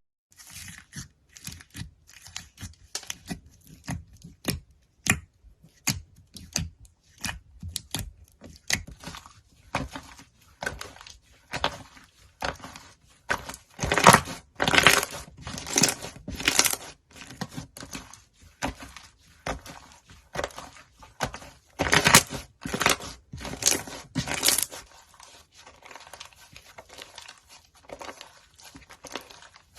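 Slime being squished and stretched by hand, making a run of short, irregular crackling squishes. Louder flurries come about halfway through and again a little later, then it goes quieter.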